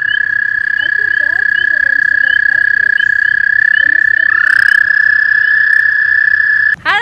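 American toad calling with its vocal sac puffed out: one long, steady, high-pitched trill that runs on unbroken. A little over four seconds in, a second trill slides up in pitch to join it, and the calling stops just before the end.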